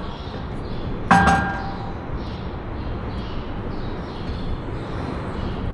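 A metal part struck once about a second in, ringing briefly with a clang, over a steady rushing noise that cuts off suddenly at the end.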